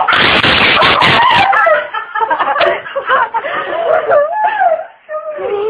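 People laughing, loudest in a breathy burst over the first two seconds, then ongoing laughter and excited voices.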